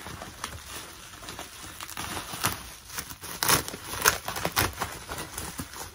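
Plastic bubble wrap crinkling and crackling as it is handled and pulled open, in irregular sharp crackles that grow louder about halfway through.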